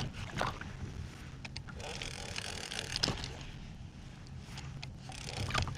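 Water slapping and lapping against a plastic sit-on-top kayak hull, over a steady low rumble, with a few scattered short knocks.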